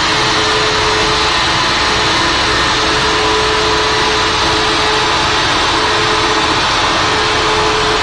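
Porsche 911 running on a chassis dynamometer at a steady speed: a loud, even drone and rush of air with a held tone, neither revving up nor dropping.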